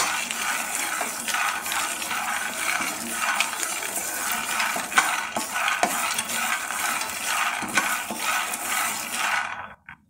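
Peanuts being dry-roasted in a non-stick pan and stirred with a spatula: a steady rattling and scraping of the nuts against the pan, full of small clicks. It cuts off suddenly near the end.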